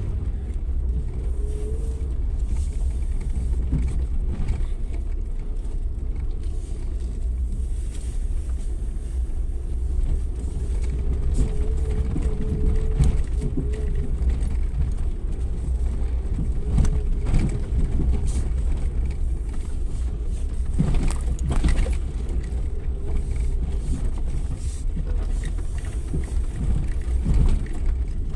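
Suzuki Jimny 4x4 driving off-road, a steady low engine and cabin drone with a faint wavering whine above it and occasional knocks and rattles, one sharper knock near the end.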